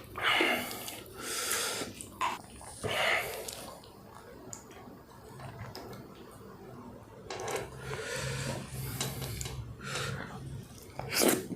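Close-miked eating sounds: chewing a mouthful of food with audible breathing through the nose, in irregular bursts.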